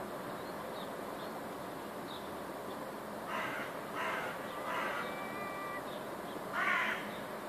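Crow cawing four times: three harsh caws in quick succession, then a louder one about two seconds later.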